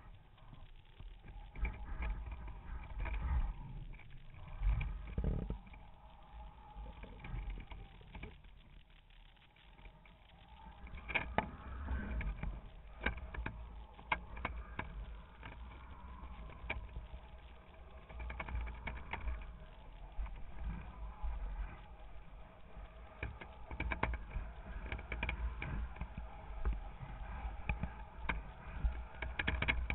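Wind buffeting a GoPro camera mounted high on a kitesurfing kite's lines: an uneven low rumble with many short, irregular knocks and rattles.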